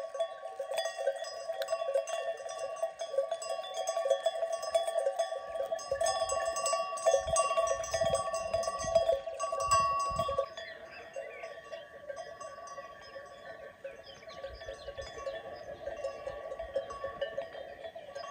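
Many livestock bells clanking and ringing together at different pitches, as on a flock of sheep moving or grazing. The bells are busiest and loudest in the first half, then thin out and drop in level about ten seconds in.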